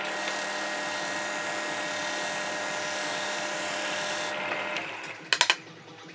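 Drill-press-driven sanding drum running with a steady motor hum while a wood edge is pressed against it, giving a loud, even sanding hiss. The hiss stops about four seconds in and the hum dies away, followed by three sharp knocks in quick succession.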